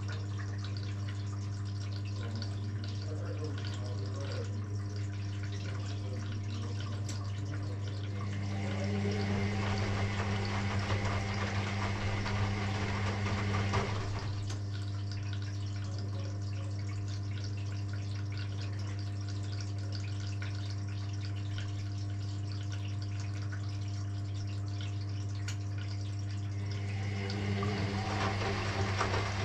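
Electrolux EW6S404WU ecobubble front-loading washing machine mid-wash: water running and sloshing inside the machine over a steady low hum, swelling louder twice, from about a third of the way in to about halfway, and again near the end.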